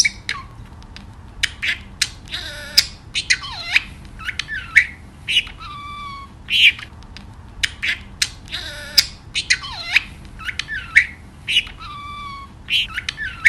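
Budgerigars chirping and squawking in quick, short, sharp calls, mixed with whistled notes that glide down in pitch.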